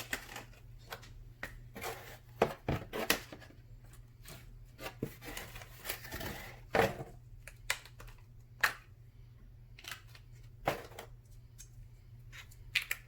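Irregular small clicks, taps and rustles of hands handling pizza toppings and packaging, with a few sharper knocks scattered through.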